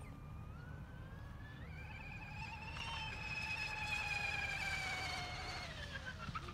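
Radio-controlled hydro speed boat on a speed run: a high, buzzing whine that climbs in pitch and grows louder, is loudest around four seconds in, then drops in pitch as the boat passes and runs away.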